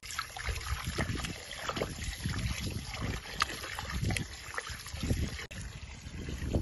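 Water from a garden hose spray nozzle running into a plastic bowl of raw chicken wings, splashing and trickling as a hand rubs the meat. A low rumble runs underneath.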